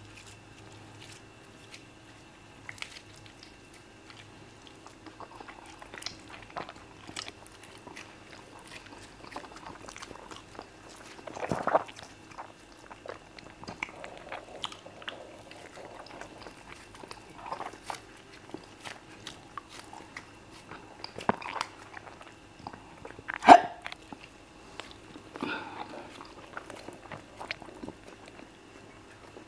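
Close-miked chewing and wet mouth sounds of people eating soft fufu dough and soup by hand: many small irregular clicks and smacks, with two louder mouth noises about twelve and twenty-three seconds in. A faint steady hum sits underneath.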